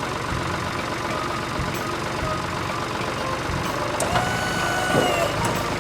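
Cartoon heavy-vehicle engine running steadily at a low rumble. About four seconds in, a pitched tone sounds for just over a second and ends with a falling sweep.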